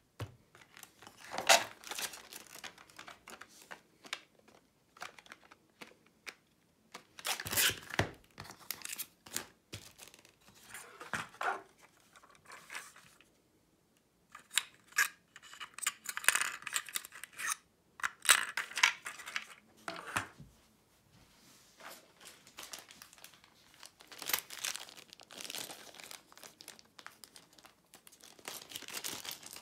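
Board game cards and pieces being handled and fitted into a storage insert: irregular bouts of rustling and crinkling with sharp clicks, pausing briefly now and then.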